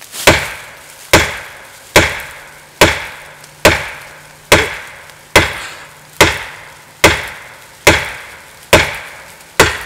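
Fiberglass-composite handle of a Fiskars 28-inch chopping axe striking a sugar maple trunk in deliberate overstrikes. Twelve sharp knocks, a little under one a second, each dying away quickly.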